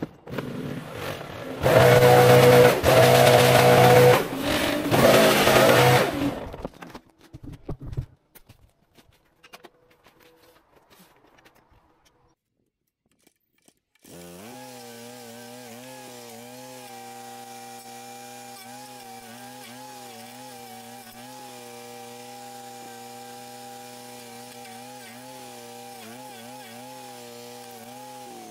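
Battery chainsaw cutting into hedge wood, in loud bursts for about five seconds, then dying away. After a silent gap, a steady machine hum starts suddenly about halfway through and holds an even pitch.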